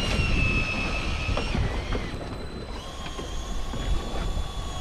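Electric fishing reel's motor whining steadily as it winds in line. The pitch drops about a second and a half in, then jumps to a new steady pitch about three seconds in as the retrieve speed changes. Under it is low wind rumble on the microphone.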